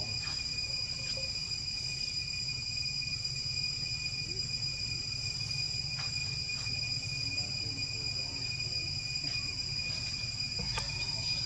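Steady, high-pitched drone of a jungle insect chorus, unbroken throughout, over a low rumble and a few faint clicks.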